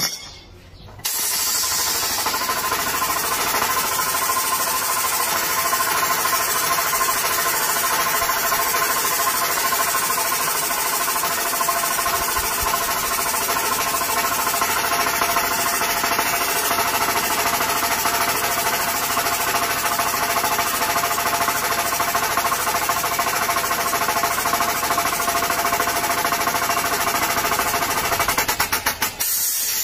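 Pneumatic brake drum puller hammering rapidly and steadily on a rusted truck brake drum, driving the drum off its hub. It starts about a second in; near the end it stutters to a stop and leaves a steady hiss of air.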